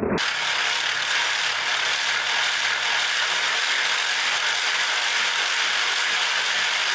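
3D-printed plastic pericyclic (nutating) bevel-gear gearbox driven at high speed by a DC motor, its rapidly nutating gears meshing in a steady, noisy mechanical whir that cuts in suddenly at the outset.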